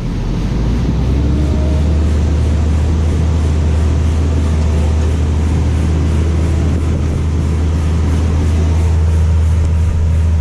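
A farm machine's engine running steadily with a loud low drone, which comes up about half a second in and then holds.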